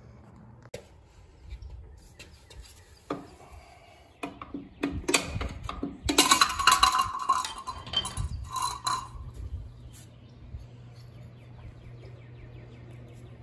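A steel pry bar clinking and scraping against a golf cart's spoked hubcap as it is prised off the wheel: a few scattered clicks, then a dense clatter of knocks and scrapes from about four to nine seconds in, loudest near the middle.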